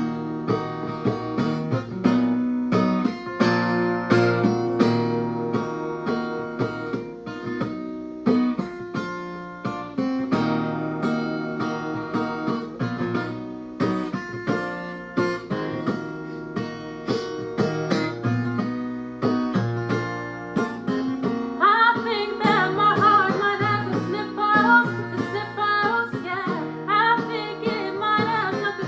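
Instrumental song intro led by guitar, with chords plucked in a steady rhythm over sustained low notes. About 22 seconds in, a wavering melody line joins higher up.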